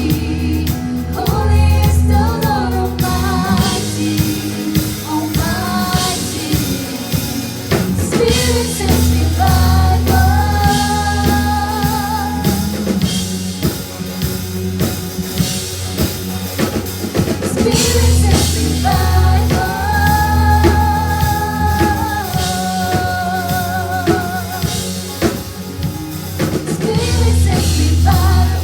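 A contemporary worship song played by a band: a voice sings long held lines with vibrato over a drum kit and bass.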